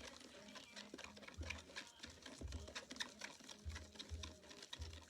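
Unset slime mixture being stirred, a quick irregular run of small sticky clicks and squelches. The activator has not yet made it set.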